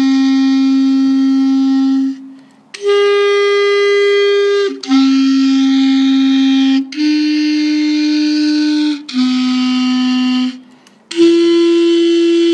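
A solo clarinet playing a slow line of long held notes, each about two seconds, moving up and down a little in pitch, with brief pauses between some notes.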